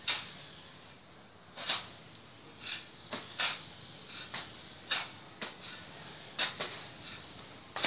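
Shovel blade repeatedly scraping into loose sand and tossing it onto a heap: a string of about a dozen short, sharp scrapes, one or two a second, at an uneven pace.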